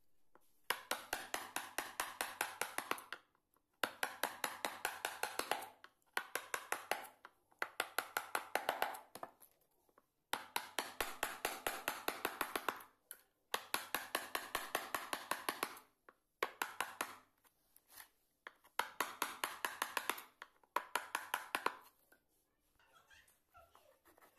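Chisel cutting into a wooden carving panel with rapid light taps, about four a second, in runs of two to three seconds with short pauses between.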